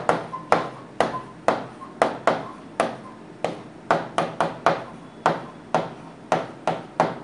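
Stylus tapping and scratching on the glass of an interactive whiteboard screen as Devanagari letters are written: a run of short, sharp taps, irregular at about two or three a second.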